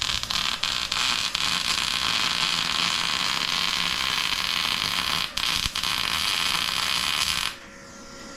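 Electric arc welder laying a bead: a steady crackling sizzle that stops about seven and a half seconds in, leaving a faint hum.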